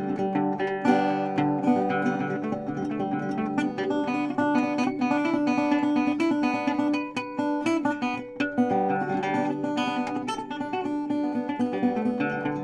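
Acoustic guitar music: plucked and strummed notes in a quick, busy run.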